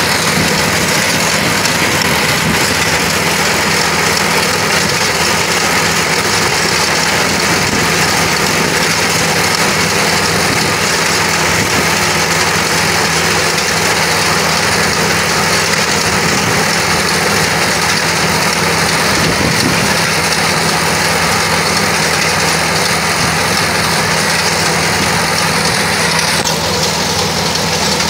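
Small half-feed rice combine harvester running steadily while harvesting, its engine and threshing machinery making a continuous mechanical drone and hiss.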